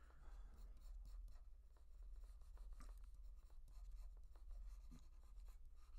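Faint scratching and light tapping of a stylus sketching on a drawing tablet, over a low steady hum.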